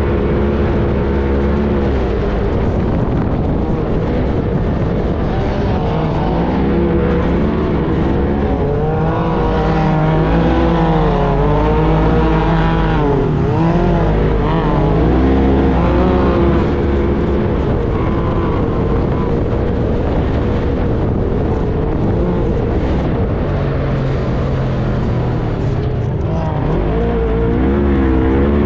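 Side-by-side UTV race engine, heard from on board, running hard on sand: a loud, steady drone whose pitch swings up and down as the throttle is worked. Other UTVs' engines join in around the middle, where it rises and falls fastest.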